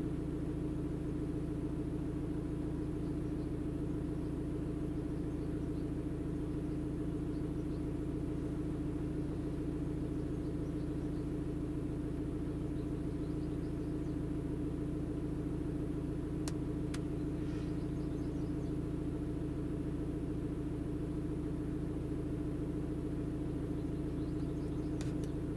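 Audi diesel engine idling steadily, heard from inside the cabin as an even hum. Two faint clicks come about two-thirds of the way through.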